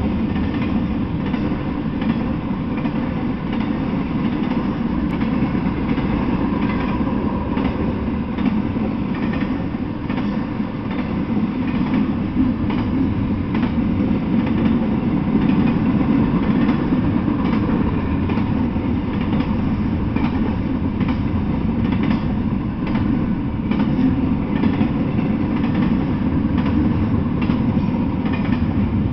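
Double-stack intermodal freight train's well cars rolling past: a steady rumble of steel wheels on the rails, with scattered faint clicks.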